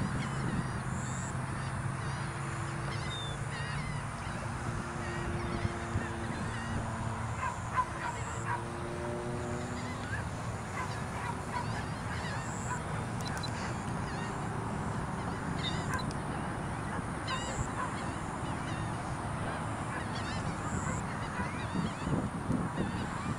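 A radio-control model airplane's engine drones faintly overhead, its pitch shifting in steps over the first several seconds. Throughout, many short bird calls keep up a steady chorus.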